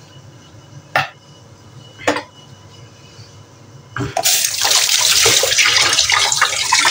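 Two sharp knocks about a second apart, then from about four seconds in a kitchen tap runs with a loud, steady rush of water.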